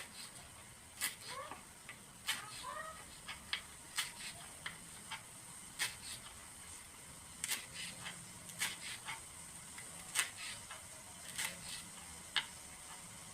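Knife slicing kencur (aromatic ginger) root into thin slices: sharp, irregular cuts, one every half second to a second or so. A few faint high chirps sound about one to three seconds in.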